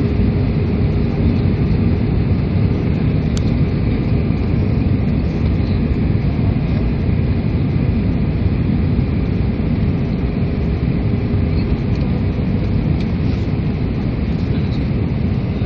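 Steady roar of a jet airliner's engines and airflow heard inside the passenger cabin during the descent to land, with a faint steady hum under it. There is a single faint click about three seconds in.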